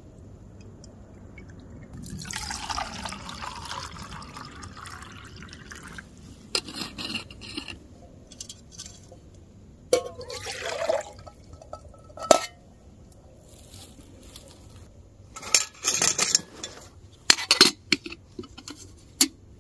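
Liquid alcohol fuel poured from a metal fuel bottle into a small alcohol stove for about four seconds. Then metal nesting cups clink and knock as they are pulled apart and set down, with one sharp clank about twelve seconds in.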